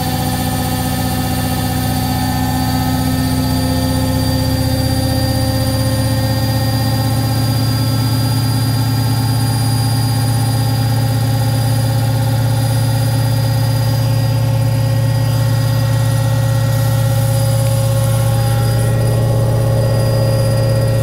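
Beko washing machine running steadily: a loud motor hum with several high, even whining tones, swelling slightly in the first few seconds and then holding constant.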